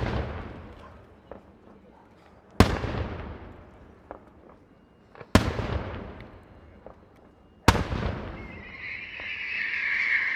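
Daytime fireworks: three loud aerial shell bangs about two and a half seconds apart, each echoing and dying away over a couple of seconds. In the last two seconds a steady high hiss sets in.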